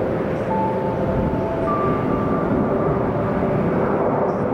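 Jet engines of an Airbus A321 airliner running as it rolls along the runway: a steady rushing noise with faint, higher whining tones that shift now and then.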